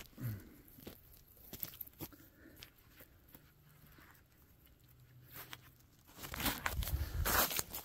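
Several seconds of faint rustling and small clicks, then footsteps on rough ground starting about six seconds in.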